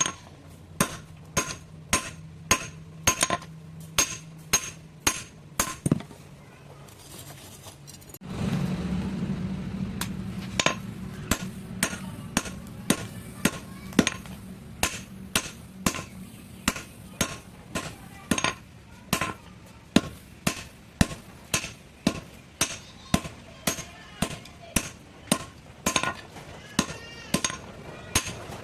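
A hand hammer striking metal in steady, ringing blows about two a second, as a blacksmith shapes metal for a kitchen sieve. The blows stop for about two seconds a third of the way in. A steady low hum then starts suddenly and the hammering resumes.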